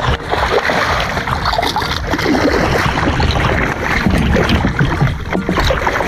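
A hooked striped bass thrashing at the surface beside a kayak, loud irregular splashing as it is fought to the net.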